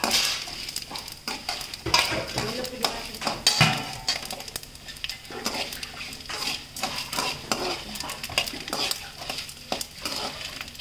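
Metal slotted spatula scraping and clinking against a metal kadai as dried red chillies, dal and seeds are stirred while they roast in a little oil, with a light sizzle underneath. The scrapes come in quick irregular strokes.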